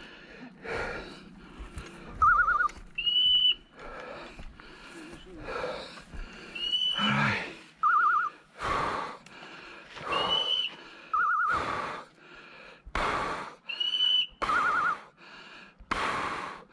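Footsteps and legs pushing through dry brush, loud irregular rustling and crunching. Under them, short high electronic beeps repeat about every three and a half seconds, with a few short warbling trills in between, typical of a hunting dog's beeper collar.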